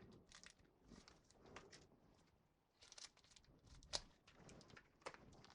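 Near silence with faint, scattered clicks and rustles of small parts being handled, the sharpest click about four seconds in.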